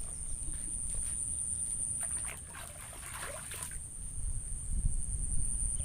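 Riverbank ambience: water trickling and sloshing at the water's edge, under a steady high-pitched drone, with a low rumble that grows louder after about four seconds.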